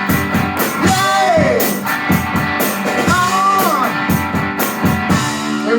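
Rock and roll band playing: electric guitar and drums under a singer's short sung phrases, one of them a shouted 'Yay!'.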